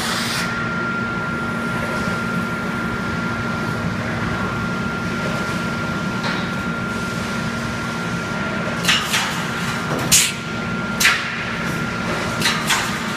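Automatic fence panel mesh welding machine running: a steady hum with a thin steady whine, then a string of sharp clacks starting about nine seconds in.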